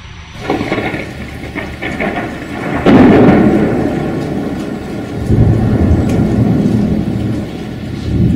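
Thunder over rain: a sudden loud clap about three seconds in rolls into a long low rumble, which swells again a couple of seconds later.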